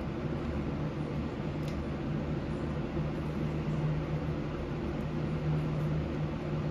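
Steady mechanical hum of a running machine, like a fan or motor, with an even low drone and no change in pitch or level.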